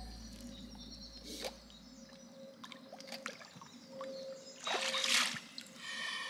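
Water sloshing and splashing around a large mirror carp held in shallow lake water as it is released, loudest about five seconds in. Background music fades out over the first two seconds.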